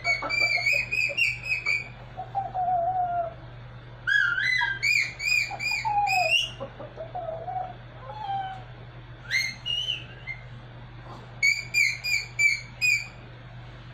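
A person whistling high, warbling phrases through cupped hands. Between the phrases a Pomeranian answers with short, lower howling tones that fall in pitch, singing along.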